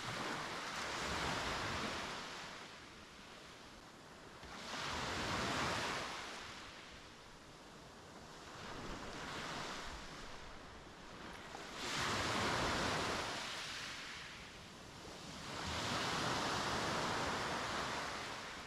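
Mediterranean sea waves breaking on a beach and washing up the shore, one after another. Each is a swell of surf noise lasting two to three seconds, about every three to four seconds, with the fourth of the five a little weaker.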